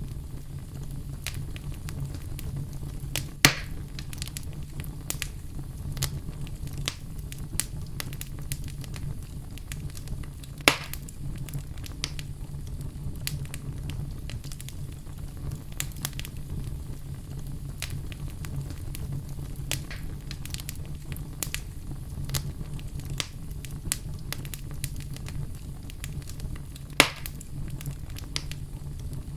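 Wood fire burning in a fireplace: a steady low rumble of flames with frequent crackles and three louder pops.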